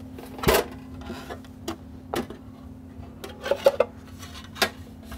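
CB amplifiers being handled and shifted about on a workbench: a series of short knocks and clatters, loudest about half a second in and in a quick cluster around three and a half seconds.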